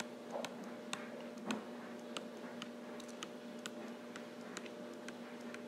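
Stylus tapping and ticking on a tablet screen while handwriting, a series of faint irregular clicks at about two a second over a faint steady hum.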